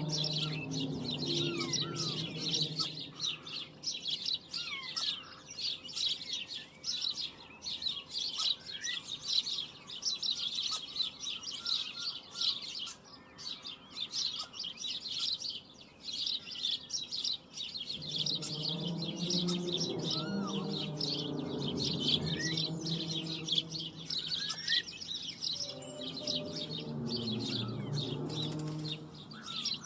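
Many birds chirping steadily. Under them, a low, wavering drone with several pitches comes and goes: at the start, again for several seconds past the middle, and once more near the end. The drone is of the kind reported as a mysterious sound from the sky, and its source is unknown.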